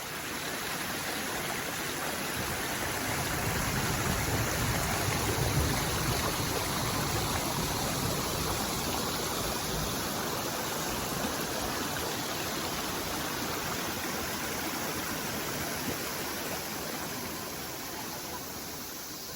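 Flowing river water rushing steadily, swelling slightly a few seconds in.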